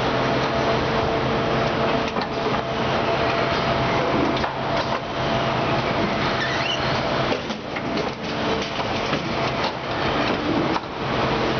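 Steady din of factory machinery with a constant hum, broken by scattered short clicks and knocks from an automated assembly station's pneumatic fixtures.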